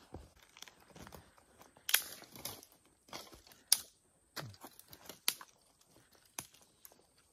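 Undergrowth being cleared by hand: sticks snapping and leafy brush crackling and rustling, with a few sharp cracks, the loudest about two seconds in and near the middle.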